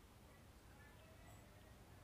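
Near silence, with only a faint steady hiss.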